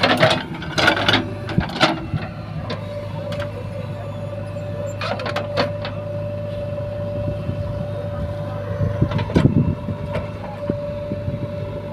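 JCB 3DX backhoe loader's diesel engine running steadily under a constant low hum, with a steady high whine setting in about three seconds in. A few short sharp knocks come near the start, around the middle and near the end.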